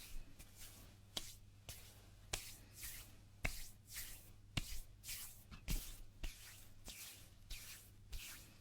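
Hands rubbing together close to an ASMR microphone: short dry swishing strokes, about two a second, with a few sharp little clicks among them.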